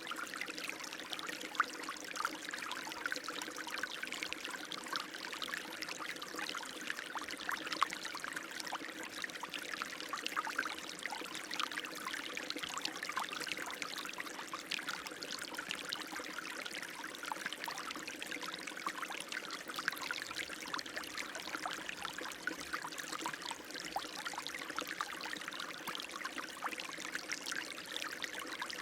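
Running water flowing and trickling steadily, with many small splashes and gurgles.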